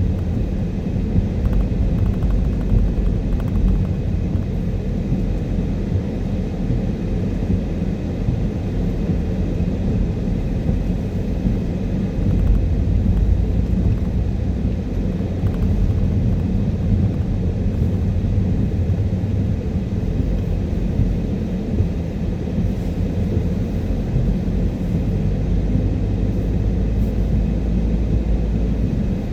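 Steady low rumble of a car's tyres and engine heard from inside the cabin while driving on rain-wet roads, swelling slightly about twelve seconds in.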